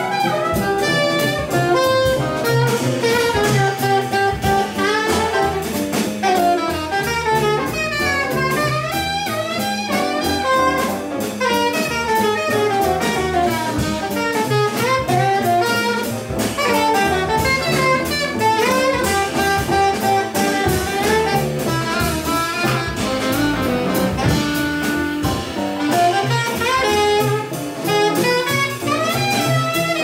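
Jazz quartet playing: a saxophone leads with quick, running lines over piano, double bass and drum kit.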